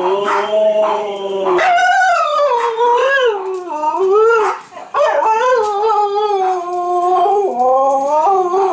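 Two huskies howling together in long wavering calls that slide up and down in pitch, with one brief break about halfway through.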